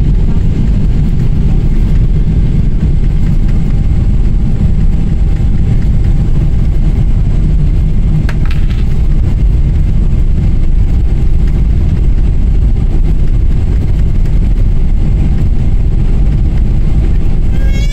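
Jet airliner cabin noise heard from a window seat over the wing: a loud, steady low rumble of the engines and the aircraft rolling on the ground, with a brief faint high tone about eight seconds in.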